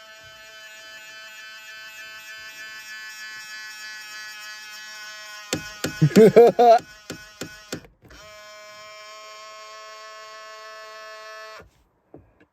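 Power side-mirror motor of a 2000 Ford Explorer buzzing with a steady, high, whiny tone as the mirror is driven. It runs for about five seconds, breaks off for a loud burst of a person's voice, then buzzes again for about three and a half seconds and cuts off shortly before the end.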